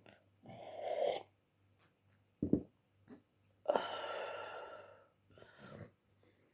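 Heavy breathing from a person down with the flu: a drawn breath that swells about half a second in, a short low knock at about two and a half seconds, then a loud breath out with a sudden start that trails off over a second, and a shorter breath near the end.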